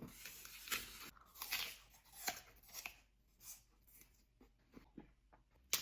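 Faint, irregular crunching and crackling from dessert being handled and eaten close to the microphone: a run of crackle at first, then separate short crunches every half second or so, and a sharper click near the end.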